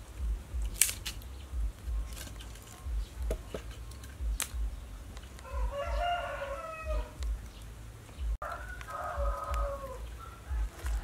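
A rooster crowing twice, the first crow about halfway through and the second near the end, each dropping in pitch as it closes. A few sharp clicks in the first half as kindling sticks are laid in a clay charcoal stove.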